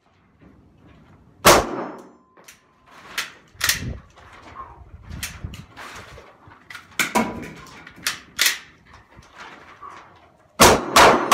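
Sharp metallic clacks and clicks from a semi-automatic pistol being worked by hand, about ten at irregular spacing with three in quick succession near the end.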